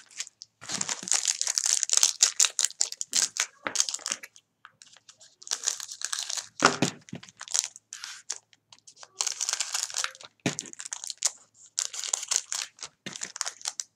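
Foil wrappers of trading-card packs crinkling and rustling as they are handled, in irregular bursts with short pauses.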